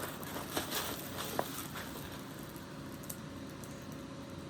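Faint handling noise: soft rustling with a few small, scattered clicks and taps over a steady low room hum.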